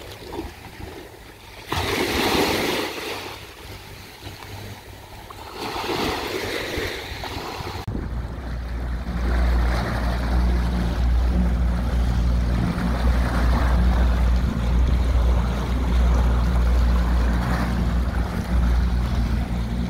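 Wind and water noise with two loud rushes in the first eight seconds. Then, from aboard, a Mercury 200 V6 outboard runs steadily under way over the rush of the wake. The new engine is being run in.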